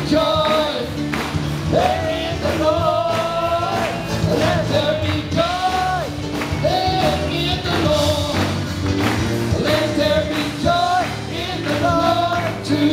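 Live praise-and-worship music with singing: long held sung notes over an electric guitar and a band keeping a steady beat.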